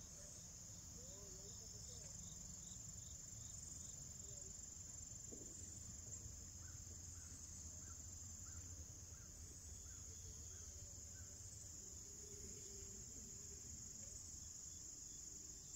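Faint evening chorus of crickets and other insects in woodland: a steady high-pitched drone with a soft, regular chirp repeating about twice a second.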